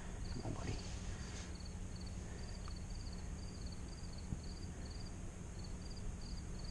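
Insects chirping: short pulsed chirps of a few quick clicks each, repeating steadily about two to three times a second, over a faint low hum.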